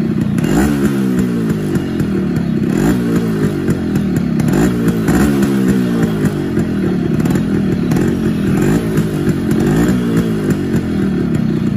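Yamaha RX100's two-stroke single-cylinder engine being revved over and over, its pitch rising and falling with each twist of the throttle, through a silencer packed with glass wool.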